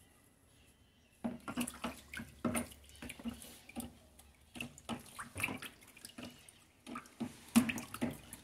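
A long stick stirring a mix of cooking oil and ethanol in a plastic tub, with liquid sloshing and irregular knocks of the stick against the tub's sides, starting about a second in and loudest near the end.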